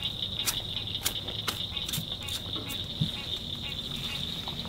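Crickets chirping in a steady, high-pitched night chorus, with scattered sharp clicks a couple of times a second.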